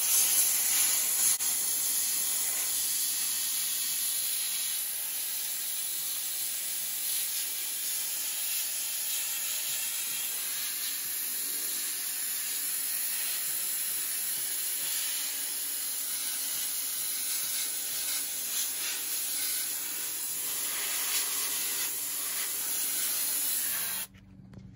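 Handheld spot sandblaster running with a steady, high hiss of air and grit, blasting rust out of the steel seam of a car's inner wheel well so it won't fester back through. It cuts off about a second before the end.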